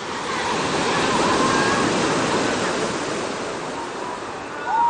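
Sea wave breaking and rushing up the beach, swelling about half a second in and slowly easing off, with faint distant voices.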